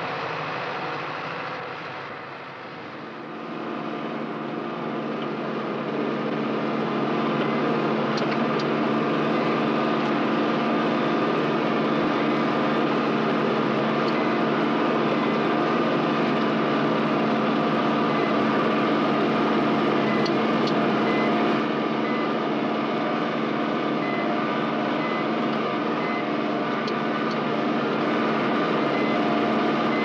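Ford 7710 tractor's diesel engine running steadily under load while pulling a plough. It grows louder a few seconds in, then holds an even pitch.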